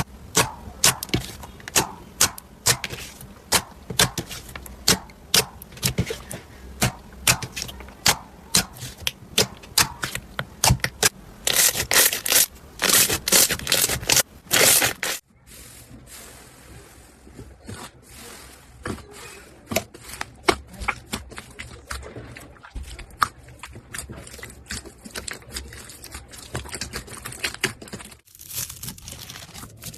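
Slime being squeezed and poked by hand, giving sharp clicks and pops a few times a second. About halfway through it cuts to quieter, finer crackling and clicking of slime.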